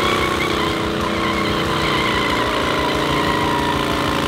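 Vintage Harley-Davidson V-twin motorcycle engine running steadily at low speed.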